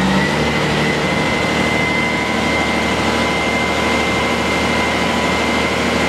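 Svetruck heavy forklift's diesel engine running steadily, with a steady high whine above it.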